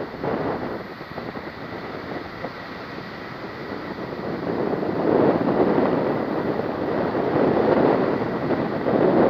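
Wind rushing over the microphone in flight on a tandem paramotor, swelling in gusts about halfway through and again near the end, with a thin steady high tone underneath.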